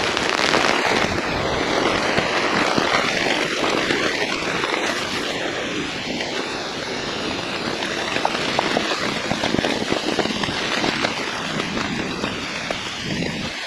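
Steady rain falling, a dense even hiss with many small drop ticks running through it.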